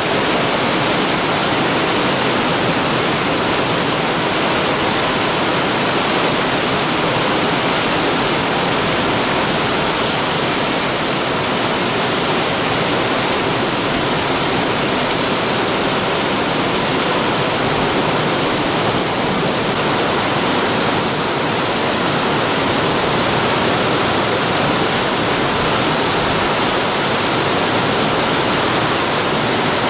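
Torrential rain from a supercell thunderstorm pouring down on the road and meadow: a loud, steady, even rush of noise.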